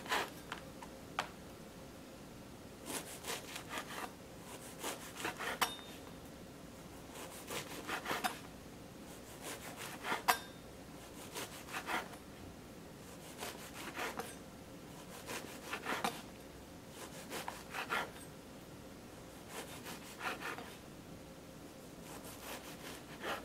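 Chef's knife sawing through a crusty baguette on a plastic cutting board: a short rasping crunch of the crust with each cut, repeating every second or two, with an occasional sharp click of the blade.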